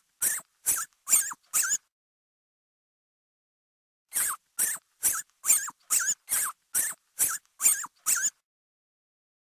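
Rat squeaking: a quick run of about five short, high squeaks, a pause of a couple of seconds, then about ten more in a row, roughly two a second.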